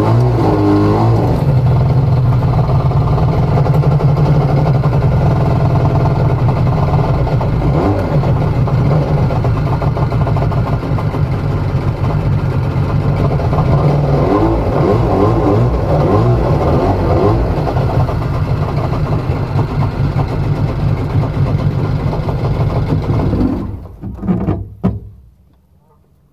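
Jet boat's engine running steadily under way. The sound stops suddenly near the end, with a couple of brief loud sounds just after.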